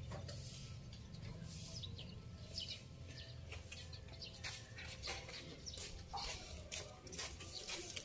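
Birds chirping in short, quick calls, scattered throughout over a low steady background rumble.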